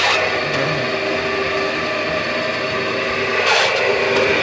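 Steady mechanical drone with several held tones under a noisy hiss, and a brief rush of noise about three and a half seconds in.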